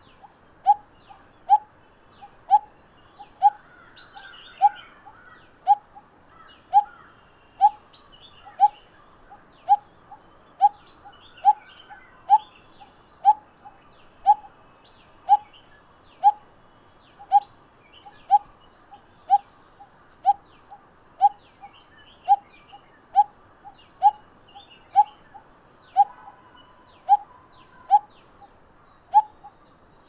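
Coppersmith barbet calling: one short note repeated steadily about once a second. Faint chirps of other small birds sound behind it.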